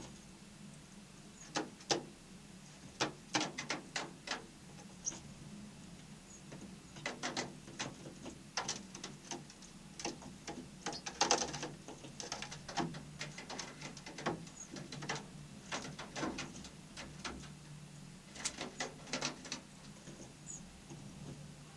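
Many irregular sharp taps and clicks, some in quick runs, with a few brief high bird calls among them over a steady low hum.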